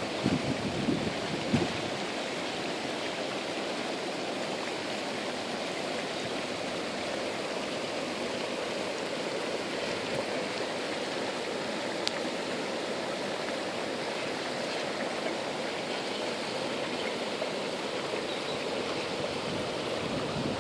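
Steady rushing, seething noise of an active volcanic steam vent and boiling spring, with a few louder surges in the first two seconds.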